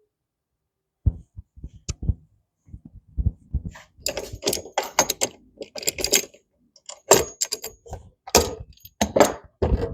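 Irregular clicks, knocks and rattles of a sliding compound miter saw being handled and adjusted, with no motor running. The knocks start about a second in and come thick and fast from about four seconds on.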